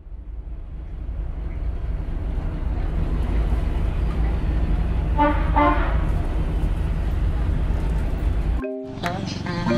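Steady low rumble of a moving vehicle heard from inside, with a horn sounding twice in quick succession about five seconds in. The rumble cuts off suddenly near the end and music with mallet-like notes begins.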